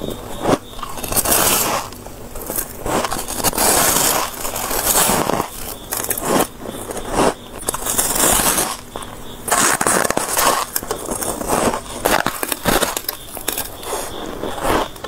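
A person biting and chewing a block of soft, snow-like white ice, each bite a crisp crunch, in an irregular run of many bites.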